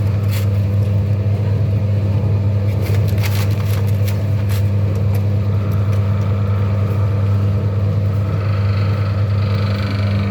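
Nutmeg-seed cracking machine running with a steady low hum, with scattered sharp cracks and clicks, most of them about three to four and a half seconds in. The sound cuts off suddenly at the end.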